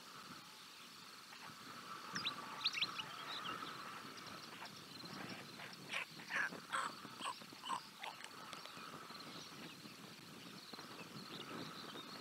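White stork chicks calling while the adult feeds them: a run of short calls about six to eight seconds in, after a few sharp high notes around two to three seconds in.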